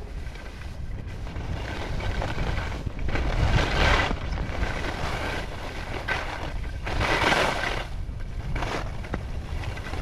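Wind buffeting the microphone while skiing downhill, with the hiss of skis scraping across packed snow. The hiss swells louder twice, at about three and a half and about seven seconds in, as the skis turn.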